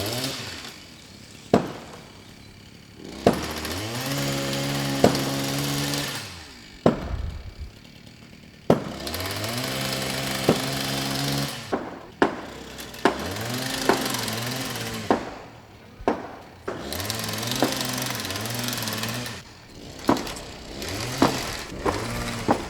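Chainsaw revved to high speed in four bursts of two to three seconds each, dropping back toward idle between them, its pitch wavering up and down in the last two bursts. Sharp knocks and cracks are scattered throughout.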